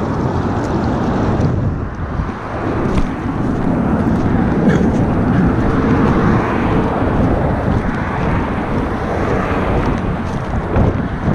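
Steady wind noise buffeting the microphone, mixed with traffic noise from the highway alongside.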